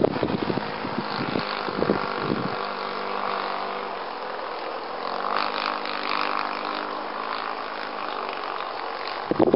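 Electric motor and propeller of a radio-controlled scale Seafire model aircraft in flight, a steady buzzing drone whose pitch shifts slightly about halfway through. Wind buffets the microphone near the start and again at the very end.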